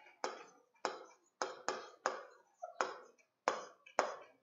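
Felt-tip marker tapping and stroking on a whiteboard while writing: a series of about eight sharp, short ticks at uneven intervals.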